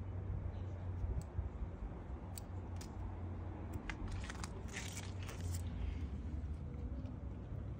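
Light crunching and rustling with a few faint clicks, strongest from about four to five and a half seconds in, over a low steady rumble.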